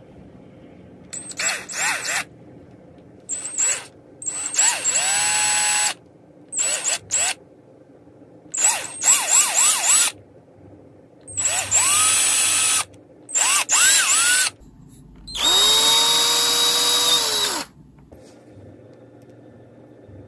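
Cordless drill with a thin bit boring small holes through a carved wooden lure body. It comes in about eight short trigger pulls, the motor's whine rising as it spins up and dropping as it stops. The longest pull comes near the end.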